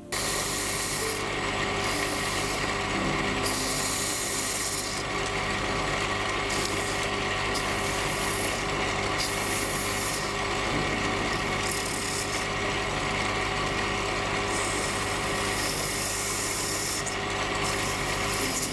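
A small machine tool runs steadily with a constant motor hum. A scraping hiss comes and goes every second or so as it cuts the metal.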